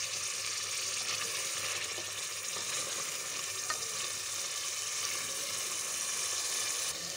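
Boiled potato slices and eggs sizzling steadily in oily red masala in a metal pot, stirred now and then with a spoon: the frying-down (bhuna) stage of a potato-and-egg curry.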